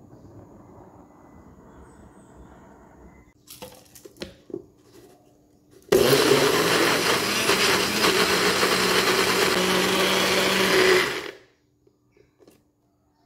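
NutriBullet personal blender running for about five seconds, grinding rolled oats and eggs into a smooth batter. It starts abruptly about six seconds in and winds down quickly. A few knocks come a couple of seconds before it starts.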